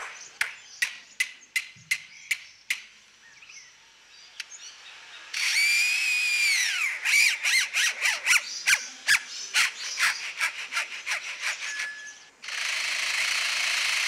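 A lyrebird mimicking man-made sounds, played back from a phone. First comes a run of single camera-shutter clicks, then a whirring sweep about five seconds in and a quick series of rapid shutter clicks. About twelve seconds in, a steady power-tool drone begins.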